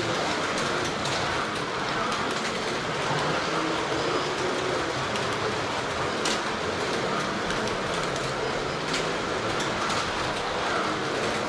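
Carrera Digital 1/32 slot cars running laps on plastic track, a steady mechanical running noise with a few sharp clicks.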